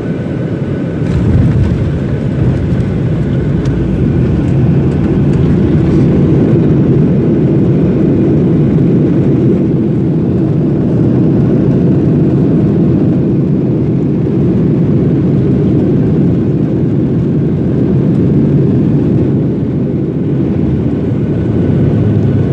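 Jet airliner roaring as heard inside the cabin during the landing roll, a steady low rumble of the engines and the runway that swells about a second in and holds.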